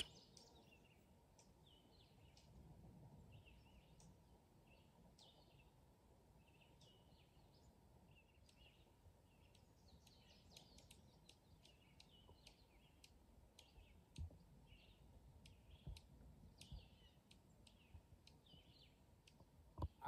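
Faint, short, sharp chip calls of small forest songbirds, coming irregularly and busier in the second half, with a few soft knocks.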